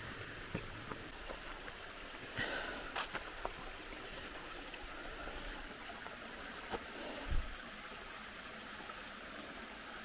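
A small mountain stream trickling steadily over rocks, with occasional footsteps on the dirt trail and a low thump a little past the seven-second mark.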